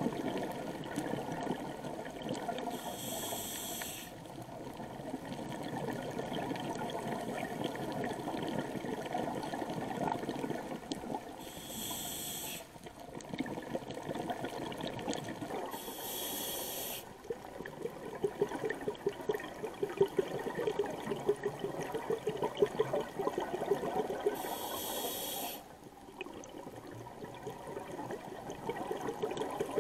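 Scuba diver breathing through a regulator, heard underwater: four hissing inhalations of about a second each, with the bubbling of exhaled air in between.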